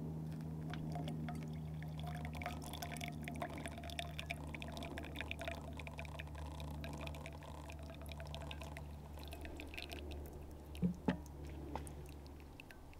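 Hot water poured in a steady stream from a stainless steel kettle into a coffee drip bag on a mug, the stream running on until it stops near the end. Two brief knocks about eleven seconds in.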